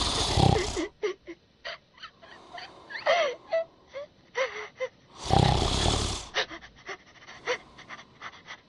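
A man snoring loudly, two long rasping snores about five seconds apart, with faint short clicks in between.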